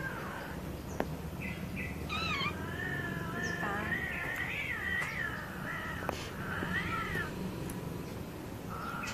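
A cat yowling in long, wavering, drawn-out cries that rise and fall in pitch, starting about two seconds in and going on for several seconds, then again near the end.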